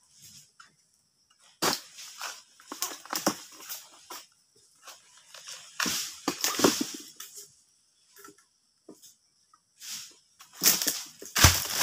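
Irregular sharp cracks and rustling crashes of dry oil palm fronds being handled during harvesting, with a heavy thud near the end.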